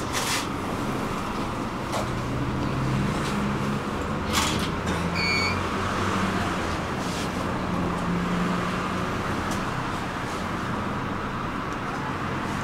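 Electric tram running, with a steady rolling noise and a low motor hum that shifts in pitch. A few sharp clicks, and a short electronic double beep about five seconds in.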